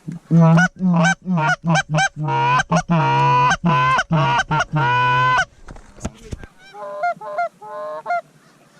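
Goose call blown close by in a quick run of short honks, then longer drawn-out honks, calling in Canada geese; fainter, higher honks of geese answer in the distance near the end.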